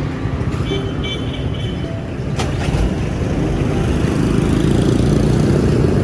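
Street traffic rumbling, growing louder over the second half as vehicles come closer. A few faint short high tones come about a second in.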